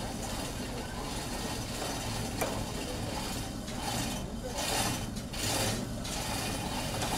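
The chained gate of an elephant transport crate being pulled open: metal creaking, scraping and rattling, with a sharp clink about two and a half seconds in and louder scraping in the second half.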